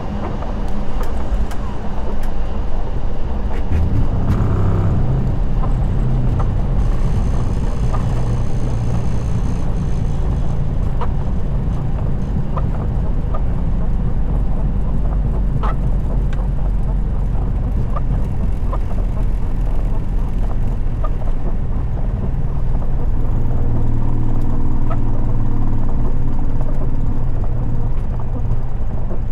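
Boeing 737 flight-deck noise during the landing: a loud, steady low rumble that steps up about a second in, with scattered faint ticks over it.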